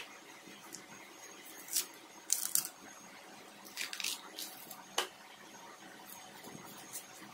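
Knife slicing and stripping the fibrous sheath from a fresh bamboo shoot: a few short, crisp scraping cuts, then a sharp click about five seconds in and a few lighter ticks.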